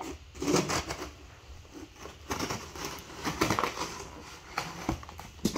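Scissors slitting the packing tape along the seam of a cardboard box, an uneven run of scratchy strokes with crackling of the tape and cardboard.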